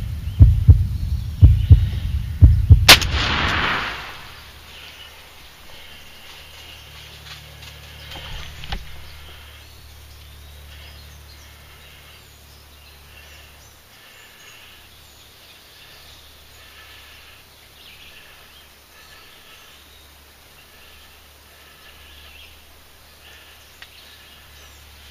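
A run of heavy, low thumps, then a single shotgun blast about three seconds in that echoes briefly through the woods. After it, faint birdsong and insects.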